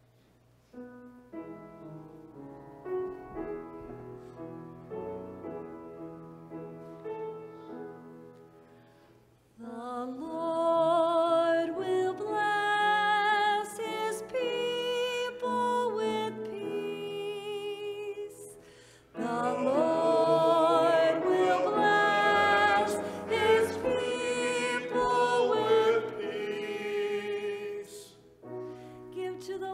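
Piano introduction, then a woman cantor singing the psalm refrain with vibrato over the piano, in two long phrases with a short break between them about two-thirds of the way in.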